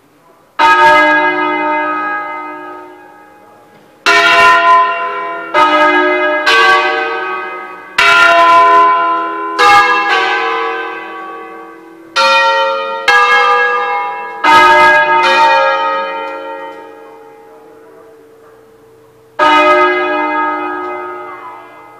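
Church tower bells struck one at a time in a slow, irregular melodic sequence of different pitches, about ten strikes, each ringing out loudly and slowly dying away: a solemn bell concert played on the belfry's bells.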